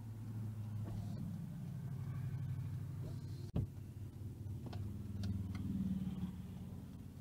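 Road traffic passing a stopped car, heard from inside the cabin: cars and a motorcycle drive by, their engine and tyre hum swelling and fading twice. There is one sharp click about halfway through.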